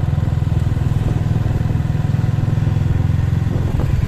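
Motorcycle engine running steadily under way, with a fast even beat, easing slightly near the end.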